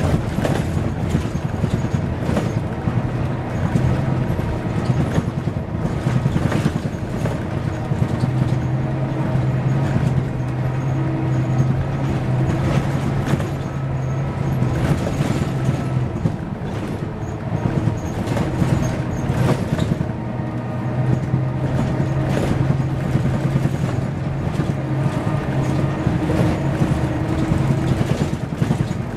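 Interior of a 2001 Mercedes-Benz O405 N² diesel city bus under way: a steady low engine note that holds for several seconds at a time, fades and returns a few times, over the clicks and rattles of the cabin fittings.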